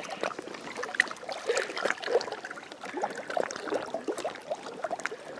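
River water gurgling and lapping against a float tube in many small, irregular splashes as the tube moves along.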